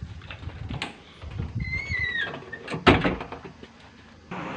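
A metal-framed glass door being handled: a few light clicks and a short falling squeak, then the door shutting with a loud bang about three seconds in.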